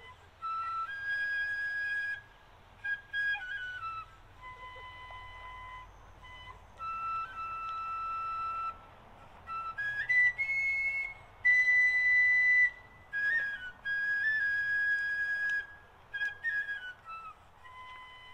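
A high-pitched solo wind instrument playing a slow melody: long held notes with quick ornamented turns between them, in phrases separated by short pauses.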